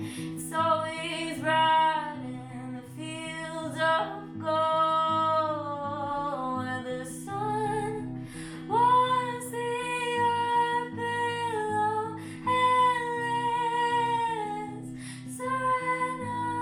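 Music: a woman singing long, held melodic notes over plucked acoustic guitar.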